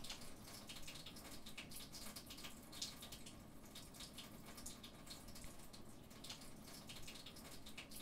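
Milk pouring from a carton into a ceramic mug: a faint run of liquid splashing and dripping.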